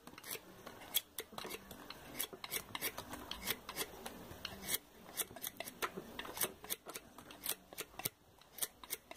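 Knife blade shaving a small block of light wood, each stroke a short sharp scrape, about two strokes a second, as the blank of a wooden ground-dove call is roughed out by hand.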